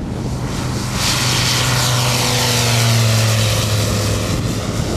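Light single-engine propeller aircraft at full takeoff power on a grass strip, lifting off and climbing past close by. The engine and propeller grow louder to a peak about three seconds in, then begin to fade.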